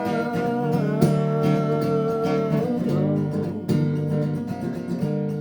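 Acoustic guitar strummed in a steady rhythm, playing the song's chord riff between sung lines, with a long held note over it from about one second in to near the middle.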